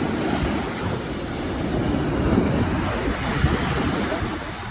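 Ocean surf washing up on a beach, heard as a steady rushing, with wind buffeting the microphone.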